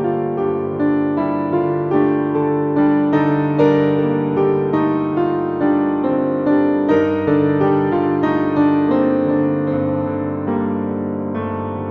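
Background piano music: a steady run of struck notes, about two a second, over held low bass notes.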